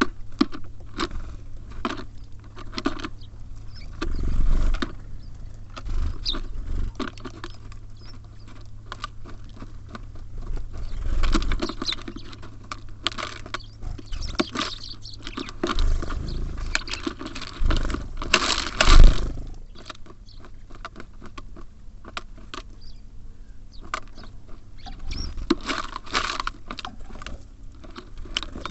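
Small birds feeding at a bird feeder close to the microphone: rapid, irregular pecking and tapping, with several louder thumps, the loudest about nineteen seconds in.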